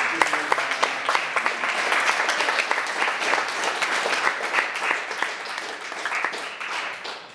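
Audience applauding, many hands clapping, dying away over the last couple of seconds.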